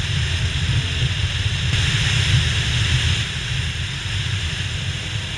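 Motorcycle riding at road speed: steady wind rush over the camera's microphone over a low rumble of engine and road, a little louder around the middle.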